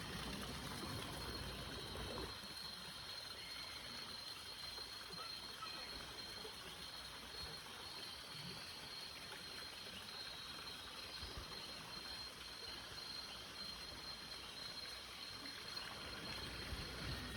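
Faint nature ambience: a steady high-pitched insect trill over a soft, even hiss.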